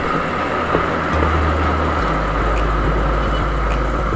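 Rusi Classic 250 motorcycle riding at road speed: the engine drone runs under steady wind and road noise, and the engine note shifts twice, about one and two seconds in.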